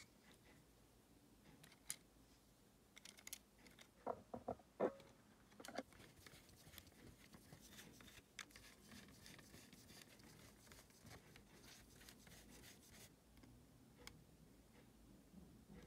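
Faint clicks and taps of small parts being handled in a cassette player's mechanism, then several seconds of faint scratching and ticking as a small screwdriver turns a screw in the circuit board.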